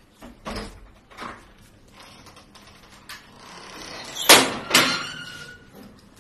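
Front door being opened: a couple of soft knocks, then two loud metallic clanks about half a second apart, the second ringing briefly, as a metal grille security door is unlatched and swung open.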